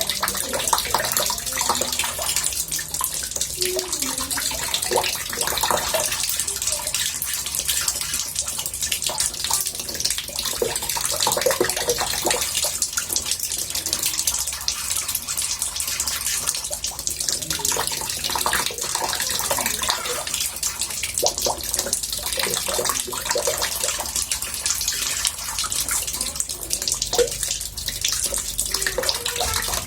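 Water running steadily into a bathtub: a continuous hiss with small gurgles and splashes.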